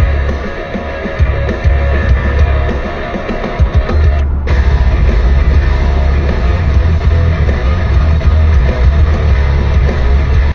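Loud rock music with guitar and drums and a heavy bass line, with a short break in the upper sound about four seconds in; it cuts off suddenly at the end.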